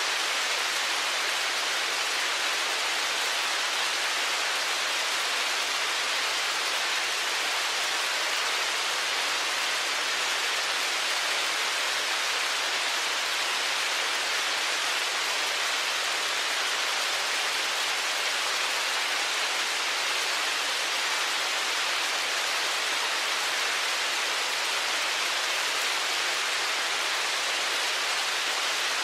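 Dense, steady hiss of heavy storm precipitation, with no separate impacts standing out.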